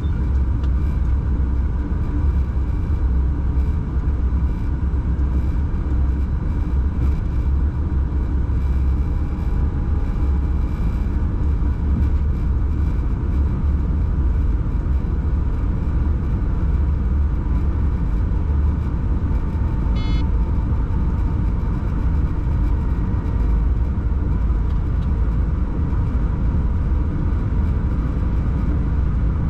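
Locomotive hauling a freight train at speed, heard from the driver's cab: a steady low rumble of wheels on rail and running gear, with a few steady whining tones above it. A brief high click sounds about twenty seconds in.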